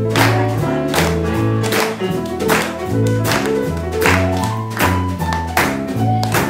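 Small jazz combo playing an instrumental stretch of a jump-blues tune: upright bass walking about two notes a second under piano and drums, with sharp hand claps keeping time.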